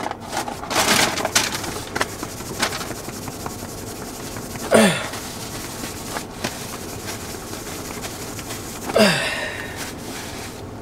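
Close crackling and rustling of eating: chewing and the handling of food and clothing, including a hand brushing crumbs off a shirt. It is densest in the first few seconds and is broken twice by a short falling hum, about five and nine seconds in.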